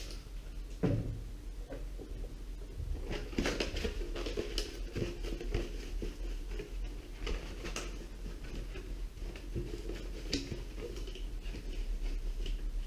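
Hard rubbing and scrubbing on a clear polycarbonate (Lexan) RC buggy body to clean off stuck nitro fuel, oil and glue residue. Irregular scratchy rubbing with small handling clicks, and one louder thump about a second in.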